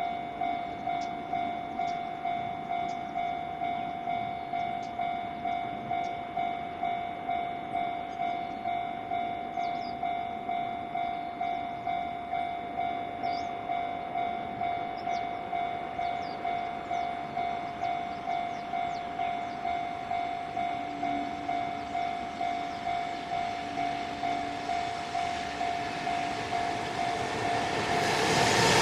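Japanese level-crossing warning bell ringing steadily, a single electronic tone at about two rings a second. Near the end, the noise of an approaching freight train hauled by an EF210 electric locomotive rises fast.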